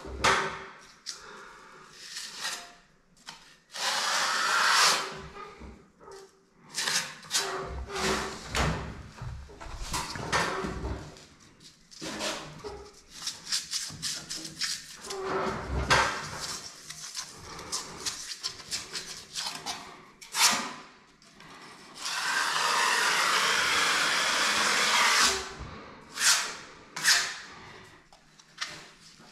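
Skim-coat plaster being worked onto a wall with a roller: a long series of short scraping strokes, with one longer, steady stroke of about three seconds a little over twenty seconds in.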